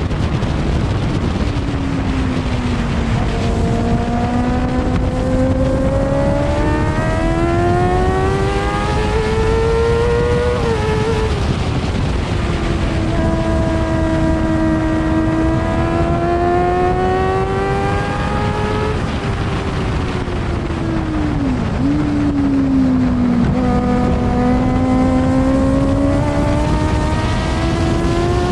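Onboard sound of an F2 racing sidecar's 600cc four-stroke engine at race speed, under steady wind rush on the microphone. The engine note climbs for several seconds, breaks briefly about ten seconds in, then holds high. It falls away around twenty seconds in and climbs again near the end.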